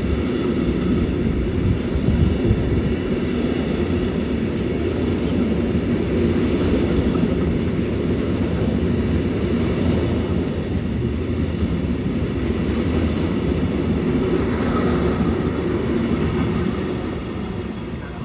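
Container freight train rolling past behind an electric locomotive: a steady rumble of wagon wheels on the rails that starts to fade away near the end.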